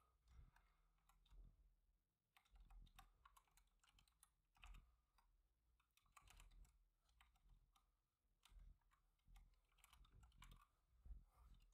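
Faint keystrokes on a computer keyboard, typed in short irregular runs with pauses between them.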